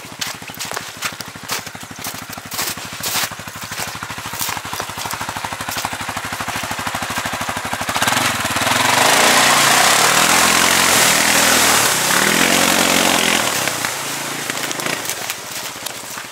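CFMOTO CFORCE 600 ATV's single-cylinder engine running at idle with a rapid, even pulse. About eight seconds in, a loud hiss of a pressure-washer jet joins for several seconds while the engine revs rise and fall.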